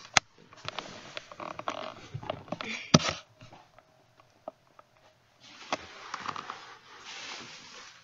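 Handling noise as a camera is picked up and moved: rustling with sharp knocks about three seconds in, a brief lull, then more rustling.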